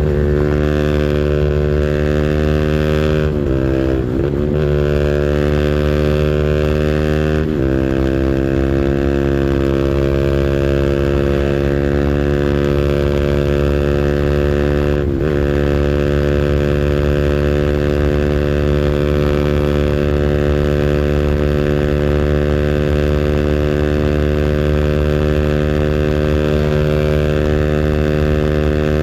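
Small 200cc engine held at high revs on its rev limiter, a loud steady engine note. The pitch briefly dips and climbs straight back a few times.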